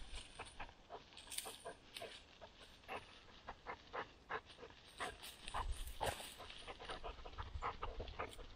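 A Pachón Navarro hunting dog pushes through tall dry grass, searching for a wounded quail. The dry stalks give many faint, irregular crackles and rustles, with the dog's panting.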